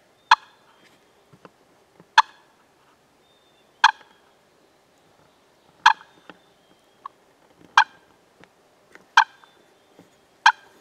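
Turkey clucks: seven short, sharp notes, loud and close, each about one and a half to two seconds after the last.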